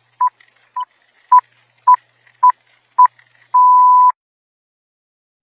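Six short, high electronic beeps about half a second apart, followed by one longer beep lasting about half a second, in the pattern of a radio time-signal countdown.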